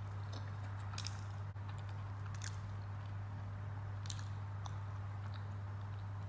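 Close-up eating sounds: fried dal poori torn apart by hand and pressed into wet potato curry, with a few short crackles, soft squishes and chewing. A steady low hum sits under it all.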